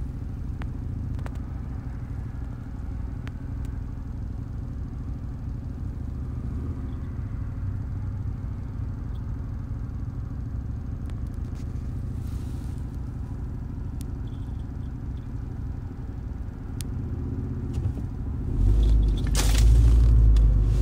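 Steady low road rumble inside a car's cabin while driving. About eighteen seconds in it gets louder, with low thumps and a loud rustle near the end.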